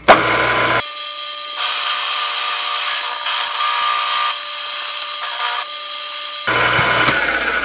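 Milling machine end mill cutting a flat along a steel rebar barrel: a steady hiss of the cut over the even whine of the spindle motor.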